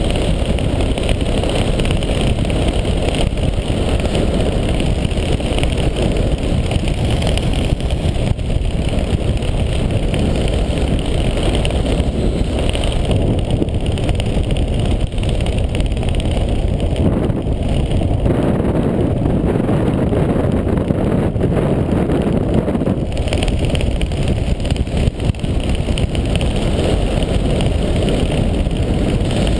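Airflow buffeting an action camera's microphone in paraglider flight: a steady, loud, low rush of wind noise.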